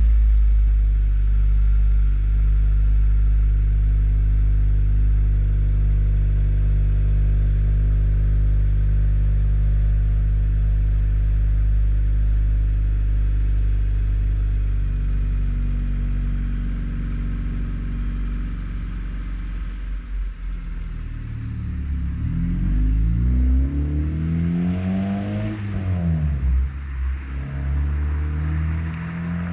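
Acura TSX (CU2) with a Yonaka catback exhaust and PLM header, idling steadily just after start-up. From about 21 seconds in it pulls away and revs up through the gears, pitch rising and falling as it drives off.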